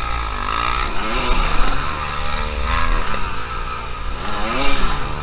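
Enduro dirt bike engine revving up and down repeatedly as the bike picks its way over rough ground, heard from on board, with other dirt bikes' engines running close by.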